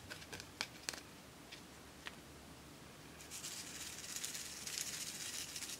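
A few light plastic clicks as a plastic shell-shaped case is handled, then, from a little past halfway, a dense high rattle of star-shaped glitter sequins pouring into an empty glass dish for about two and a half seconds.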